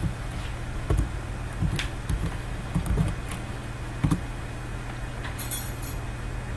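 Steady low electrical hum under a handful of soft, scattered knocks and clicks from computer keyboard keystrokes and mouse clicks, most of them in the first four seconds; a brief high hiss comes about five and a half seconds in.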